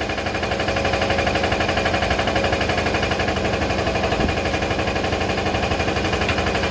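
Toilet paper rewinding machine running continuously with a rapid, even mechanical clatter during a trial run.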